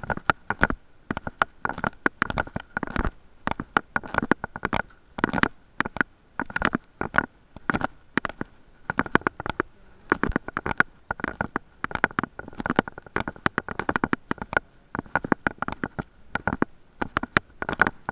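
Handling noise on a hand-held camera's microphone: irregular rubbing and knocking, bunched about once a second in step with walking, over a faint steady high tone.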